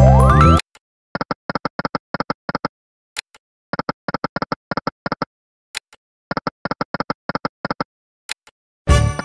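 Sound effects of the EGT Lucky & Wild slot machine game. A loud rising win jingle plays at the start. Then come three runs of quick, even reel-spin ticks, about six a second, each lasting about a second and a half, with single clicks between them, and a second loud jingle of tones near the end.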